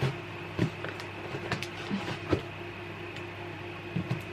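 A few light knocks and taps, about three of them spread out, over a steady low hum in a small room.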